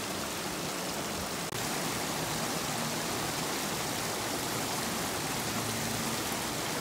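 Creek water rushing steadily over a low rock ledge, an even hiss that breaks off for an instant about a second and a half in and comes back slightly louder.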